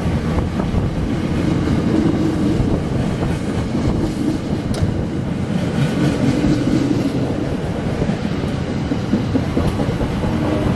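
A train passing close by: loud, steady noise of wheels on rails with many small clicks running through it.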